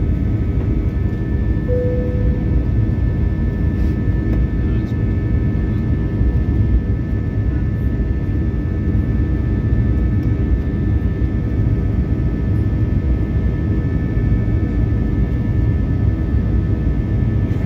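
Airbus A320 cabin noise with the jet engines at high power: a loud, steady deep roar with several steady whining engine tones above it. A brief tone sounds about two seconds in.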